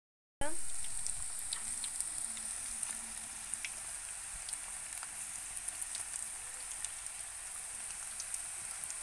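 Ragi pakoda dough, finger-millet flour with gram flour and onion, frying in hot groundnut oil in an aluminium kadai: steady sizzling with scattered crackles. It starts suddenly just after the start.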